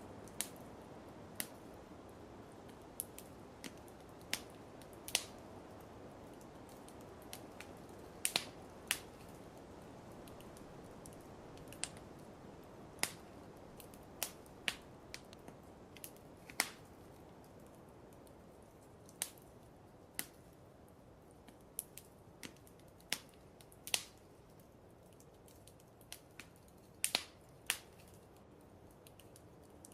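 Wood fire crackling in a fireplace: irregular sharp pops and snaps, roughly one a second, over a faint steady hiss.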